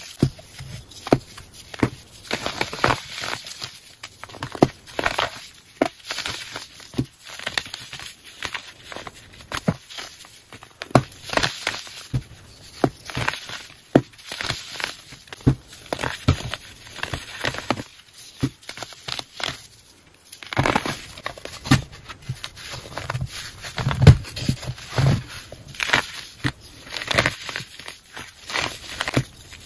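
Hands crushing and crumbling dried, pressed baking soda slabs: a continuous, irregular run of crisp crunches and crackles, with a few louder, deeper crunches late on.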